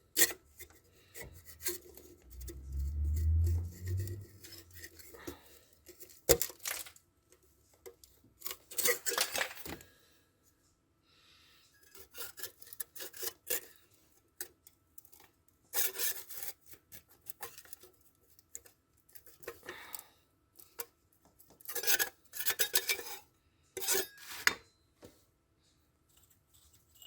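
Hand tools and metal engine parts clinking, knocking and scraping during engine disassembly, in short irregular spells with sharp clicks between. A low rumble runs from about two to five seconds in.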